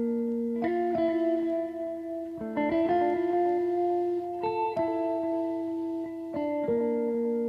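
Background music: slow plucked guitar playing sustained, ringing notes that change about once a second.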